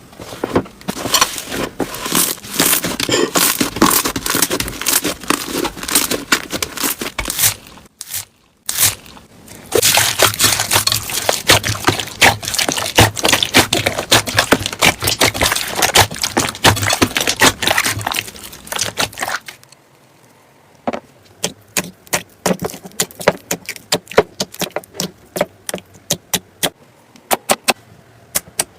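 Slime being squeezed and kneaded by hand, giving a dense crackling of tiny pops and squelches that breaks off briefly at about eight seconds. About two-thirds of the way in it thins out to separate sharp pops, a few a second.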